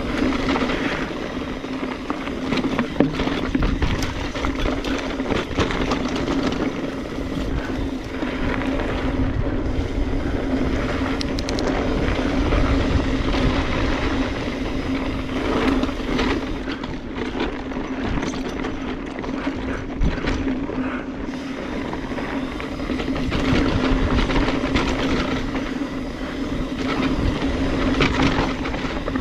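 Mountain bike descending a loose dirt trail, heard from a chest-mounted action camera: wind rumble on the microphone, tyres crunching and sliding on loose dirt and gravel, and the bike clattering over bumps, with a steady buzz underneath.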